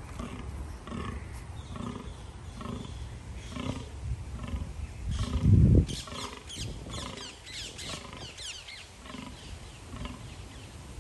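Fallow buck groaning in the rut: a low call repeated steadily, about twice a second. A loud low thump about halfway through.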